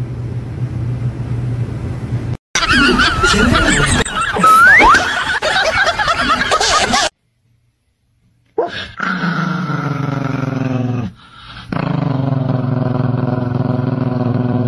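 Chihuahua growling in two long stretches, about two and three seconds, with its teeth bared. Before it, after a brief silence, comes a stretch of wavering high-pitched calls with one quick upward squeal.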